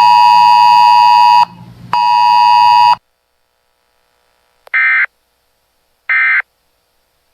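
Weather-radio alert broadcast: a steady electronic buzzer tone that breaks briefly about one and a half seconds in and stops at about three seconds. After a silence come two short warbling data bursts about a second and a quarter apart, the EAS end-of-message code that closes the alert.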